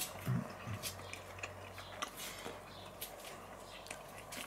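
A man chewing a bite of grilled meat close to the microphone: faint, irregular mouth clicks and smacks over a low steady hum.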